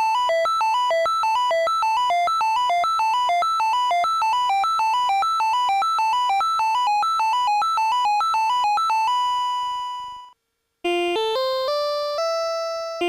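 Casio VL-Tone VL-5 keyboard playing a fast, even run of bright, buzzy repeated notes. One note is held for about a second near the end, it stops briefly, and a different pattern starts.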